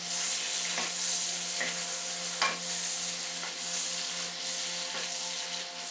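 Mushrooms and pepper frying in olive oil in a wok: a steady sizzle with a few knocks of the stirring utensil, the loudest about two and a half seconds in. A steady low hum runs underneath.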